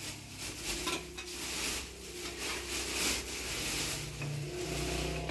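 Plastic bag rustling and crinkling as it is handled, mixed with a metal ladle scraping and clinking against a pan and small metal bowls while stew is served.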